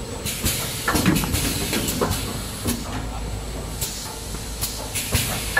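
Automatic six-roll kitchen towel bundle packing machine running: a steady mechanical hum with irregular clacks and knocks from its mechanism.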